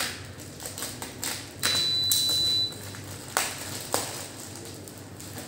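Clear plastic packaging crinkling and crackling as a utility knife slits it open and the wrapping is pulled apart. There is a loud tearing stretch lasting about a second, some two seconds in, and sharp crackles follow.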